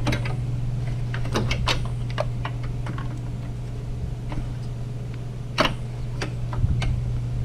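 Irregular light clicks and taps of hands working headlight parts and wiring, with one sharper click a little past halfway, over a steady low hum.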